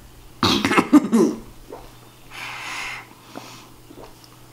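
Breathy gasps and heavy breathing from people gulping tea through straws. There is a loud wheezy burst about half a second in, then a softer hiss of breath a couple of seconds later.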